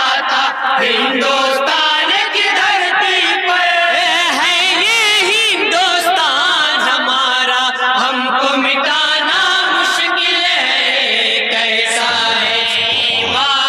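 A group of men singing a naat in unison through a PA microphone, unaccompanied, one continuous sung line with wavering, ornamented pitch around the middle.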